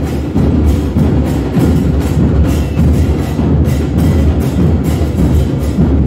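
Bombos, the large bass drums of the fan band in the stand, pounding a steady rhythm, with a crowd of football fans singing along.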